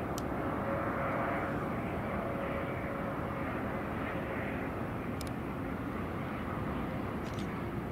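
Jet airliner engine noise: a steady rumble and rush with a faint whine that fades out a few seconds in.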